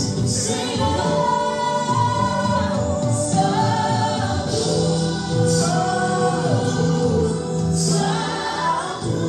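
Gospel worship music: sung vocals with choir-like backing over an instrumental accompaniment.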